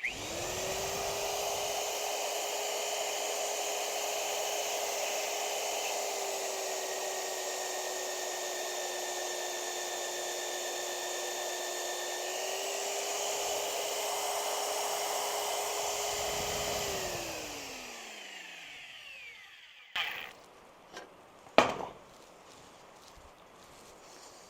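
Electric power tool motor spinning up to speed at once and running steadily, its pitch sagging slightly under load for several seconds in the middle, then released and winding down with a falling whine. A few sharp knocks of metal follow near the end.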